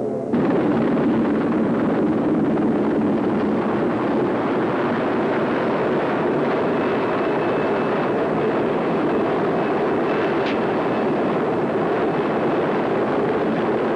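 Westland Sea King HAR3 rescue helicopter hovering: a loud, steady rush of rotor and engine noise, with a faint high whine through the middle. Background music cuts off just after the start.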